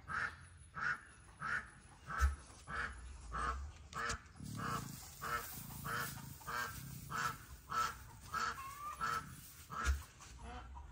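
Patagonian cavies (maras) giving short, repeated calls, about two a second, with a couple of brief low thumps in between.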